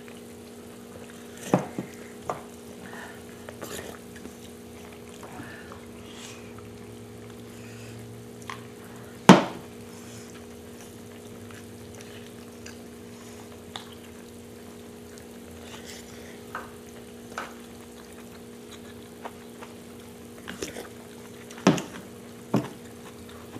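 Eating at the table: scattered sharp clicks of chopsticks and a spoon against bowls and the pan, the loudest about nine seconds in and two more near the end, over a steady low hum and the faint simmer of hot kimchi stew in an electric griddle pan.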